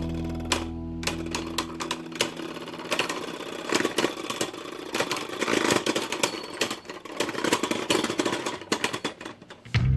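Beyblade Burst spinning tops battling in a plastic stadium: a rapid, irregular run of clicks, knocks and rattling hits as the tops collide and scrape. Background music fades out in the first two seconds and comes back in loudly at the very end.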